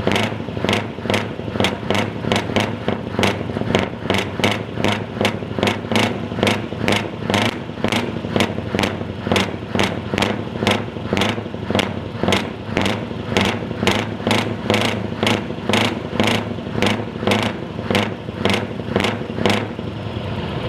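Scania R580's V8 diesel engine running with a regular pulse, about five beats every two seconds.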